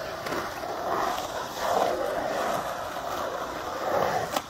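Skateboard wheels rolling and carving across a concrete bowl: a continuous rumble that rises and falls as the rider crosses the flat and climbs the transition, with a light click near the end.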